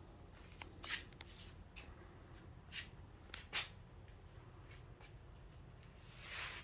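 Faint, low steady hum with a few short rustles and clicks, and a brief swelling hiss near the end.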